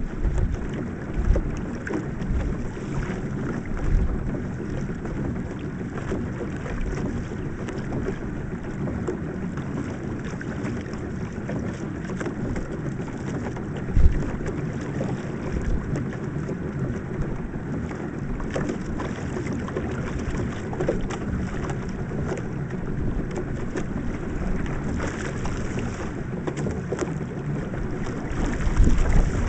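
Pedal boat under way on choppy water: steady splashing and lapping of water at the hull, with wind buffeting the microphone and a single thump about fourteen seconds in.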